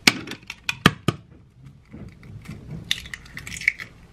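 An egg knocked sharply against a stainless steel mixing bowl about three times in the first second, then its shell crackling as it is broken open near the end.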